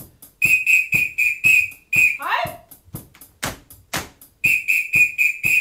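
A metal whistle blown in short, rhythmic blasts, about four a second, in two runs, over a steady pattern of sharp claps. A falling swoop comes between the runs.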